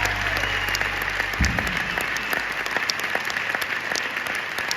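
Concert audience applauding at the end of a song. The band's held low final note stops with a last low thump about a second and a half in, leaving only the clapping.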